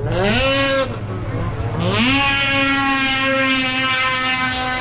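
850-class two-stroke drag-race snowmobile engines launching: a quick rev that rises and falls off in the first second, then about two seconds in the engine climbs sharply in pitch and holds at high steady revs as the sled runs down the track.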